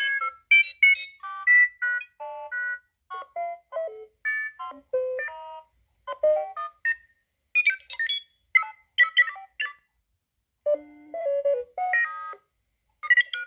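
Droid Depot droid's blue personality chip playing astromech-style droid beeps and whistles: quick strings of short electronic chirps and warbles that jump between pitches, with a short pause about three quarters of the way through.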